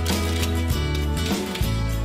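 Background music: a steady, upbeat tune with plucked guitar and bass notes changing every half second or so.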